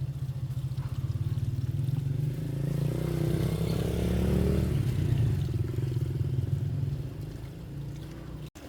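A small engine running, growing louder toward the middle and then fading away, as a motor passing by; the sound cuts off abruptly near the end.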